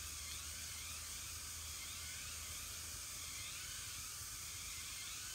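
Steady outdoor hiss with faint, repeated wavering chirps in the background: forest ambience.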